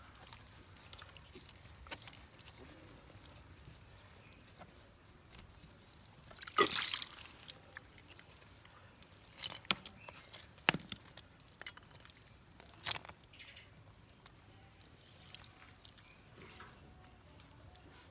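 Faint background noise with a handful of scattered clicks and knocks, the loudest about six and a half seconds in.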